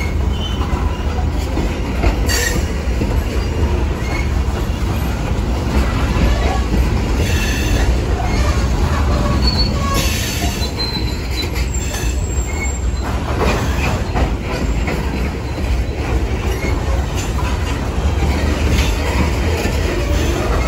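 Freight train's open-top hopper cars rolling past at close range: a steady low rumble of steel wheels on rail, with brief wheel squeals now and then.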